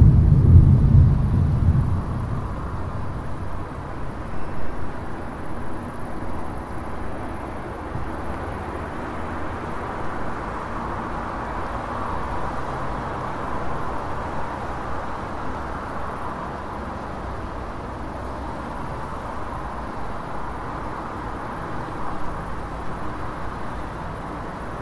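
A low rumble of thunder fading over the first two seconds, then the steady hiss of car traffic, which swells and falls away again around the middle.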